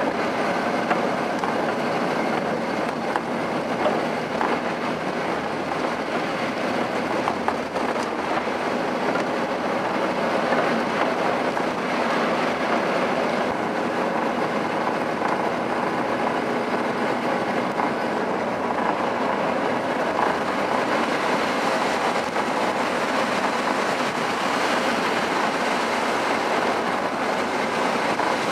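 Steady road and tyre noise from a car driving on snow-covered roads, heard from inside the cabin.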